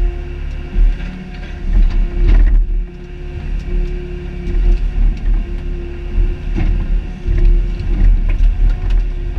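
Mini excavator's diesel engine running under load while the boom and bucket work. There is a deep rumble with a hum that swells and drops every second or so, and a few sharp knocks.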